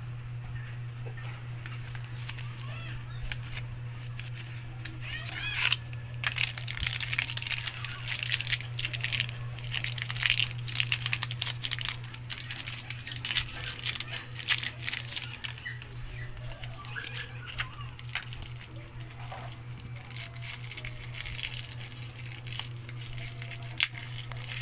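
Juki sewing machine motor humming steadily, with scattered clicking and crackling rattles over it from about six seconds in.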